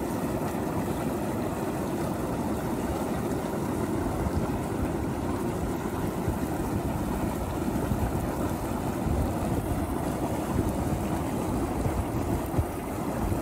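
Steady rushing noise of steam and sulfur gas venting from the ground at a volcanic crater's mouth.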